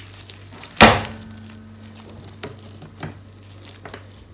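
Bamboo sushi rolling mat and rice roll handled on a wooden worktop: one sharp wooden knock about a second in that rings on briefly, then a few light taps.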